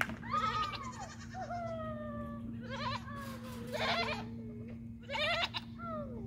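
Goats bleating one after another, about five calls, some long and falling in pitch, others quavering, with some calls overlapping.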